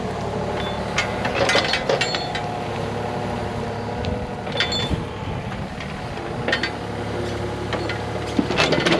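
An engine running steadily, with stones knocking and clinking against each other and against metal now and then: about five sharp knocks and clinks spread through the stretch, the loudest cluster near the end.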